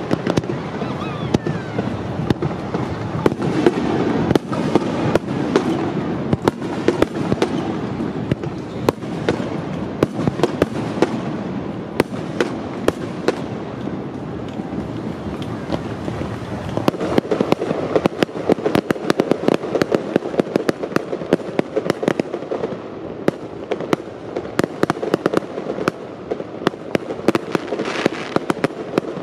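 Aerial fireworks display: a dense, rapid string of shell bursts and crackling, many sharp bangs close together.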